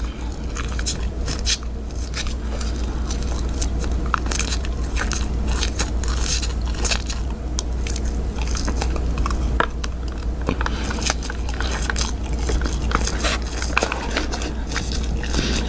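Close-miked person biting and chewing into a bar of soap: many crisp, crackling crunch clicks one after another, over a steady low electrical hum.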